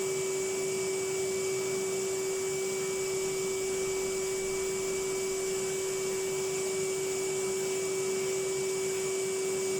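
Vacuum cleaner running steadily, a constant motor whine over airflow hiss.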